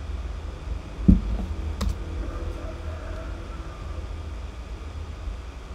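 A few keystrokes on a computer keyboard over a steady low hum: a low thump about a second in, the loudest sound, and a sharp click shortly after.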